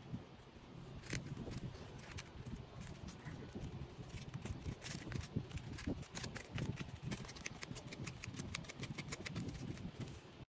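Plastic-sleeved photocards clicking and rustling as they are handled and stacked on a table, with a dense run of quick sharp clicks in the second half.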